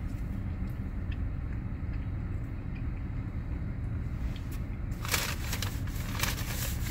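Paper fast-food bag rustling and crinkling as a hand digs into it, starting about five seconds in, over a steady low rumble in the car cabin.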